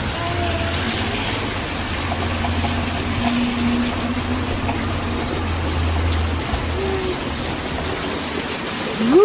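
Heavy rain pouring down on pavement as a steady hiss, with a low hum underneath that stops about two-thirds of the way through.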